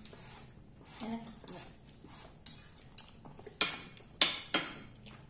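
Metal spoons and forks clinking and scraping against ceramic dinner plates as people eat. There is a sharp clink about two and a half seconds in and several more near the end, with a brief murmur of voice about a second in.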